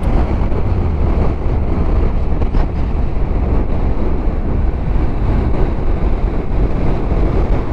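Motorcycle riding at road speed: a steady mix of engine and wind rushing over the helmet-mounted microphone.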